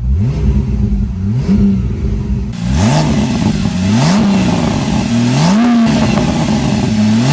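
Porsche 997.2 Turbo S twin-turbo flat-six with a new exhaust, driven in normal mode with Sport off. The engine note rises in pitch and drops back several times as the car accelerates, and it grows louder and brighter about two and a half seconds in.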